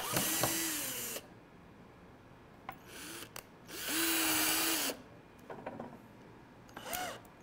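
Power drill driving screws into wood in short bursts: about a second at the start, a brief one about three seconds in, another of about a second about four seconds in, and a short one near the end, each with a steady motor whine.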